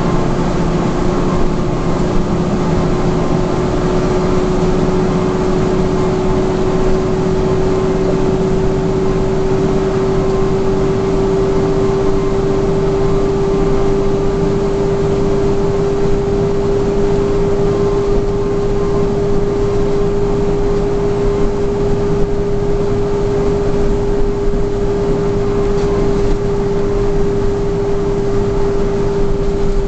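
Cab noise of a heavy truck cruising at highway speed: steady engine and road drone with a prominent hum that rises very slightly in pitch over the first half, then holds.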